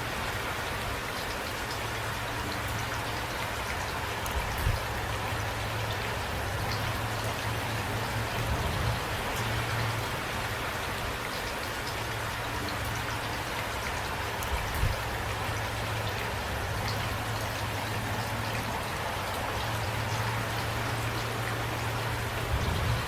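Steady rain falling, an even hiss of drops, with a few louder drops standing out about five and fifteen seconds in.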